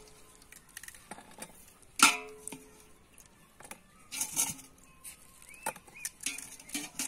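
Tomatoes and onions lifted out of a steel basin of water and set down on a steel plate: water splashing and dripping, and scattered knocks of produce and hands on the steel, the loudest about two seconds in with a brief metallic ring.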